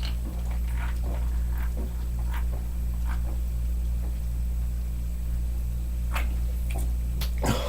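A person gulping carbonated soda straight from a can, with short, faint swallowing sounds scattered through and a louder one near the end, over a steady low hum.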